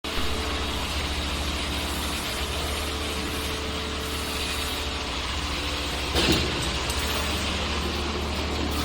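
2D CNC wire bending machine running with a steady mechanical hum, with a brief louder burst of noise about six seconds in.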